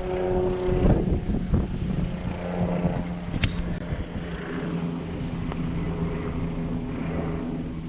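A motor hums steadily at one pitch, with wind rumbling on the microphone and a single sharp click partway through.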